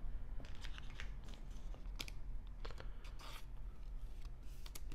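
Thin plastic card sleeve crinkling and scraping as a trading card is slid into it and handled, in a string of short scratchy rustles.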